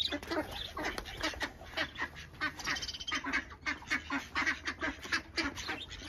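Ducks quacking over and over in quick, overlapping calls, with a brief high chirp from a small bird a little before the middle.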